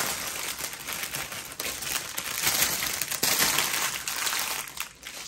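Small plastic bags of diamond painting drills crinkling and rustling as they are handled and sorted, with a few sharp clicks. It is loudest in the middle and quieter near the end.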